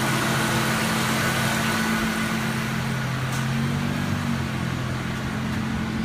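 2003 Ford Mustang V6 engine idling steadily, heard from the open engine bay with a steady hiss over the hum; a light click comes about three seconds in.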